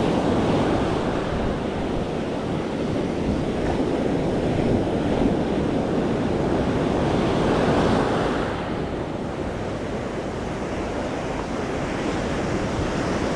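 Ocean surf washing onto the beach, with wind buffeting the microphone. The wash swells about eight seconds in, then eases off.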